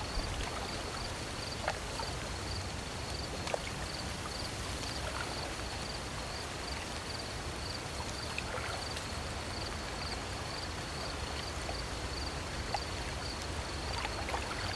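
Crickets chirping in a regular, even rhythm over a low steady hiss of night ambience, with a few faint ticks.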